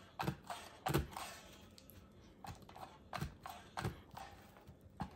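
Hand-held Jaccard-style needle meat tenderizer, its bottom guard removed, being pressed into raw chicken drumsticks on a plastic cutting board: a series of short knocks and clicks at an uneven pace, about six in all, the loudest about a second in.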